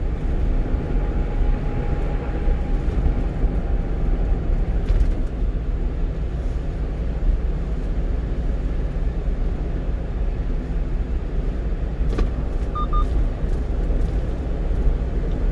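A one-ton truck cruising at highway speed: steady low engine and tyre rumble. About twelve seconds in there is a sharp click, followed by a short double beep.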